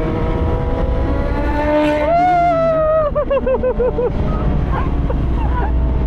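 Sport motorcycle engine revving hard: the pitch climbs over the first two seconds and holds high for about a second. It then rises and falls in quick pulses, about five a second, before settling.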